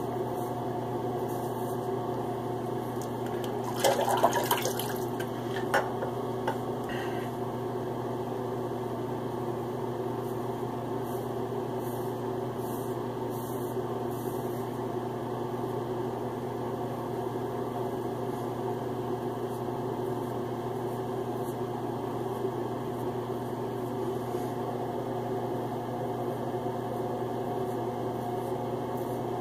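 A steady low hum, with a short burst of clattering noise about four seconds in and a couple of single clicks soon after.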